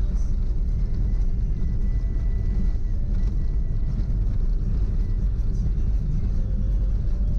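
Steady low rumble of a car driving, engine and road noise, with music playing along with it.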